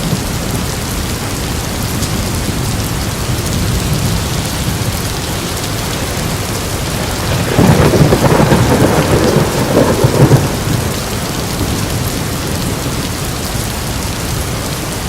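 Steady heavy rain with a roll of thunder rumbling through the middle for about three seconds.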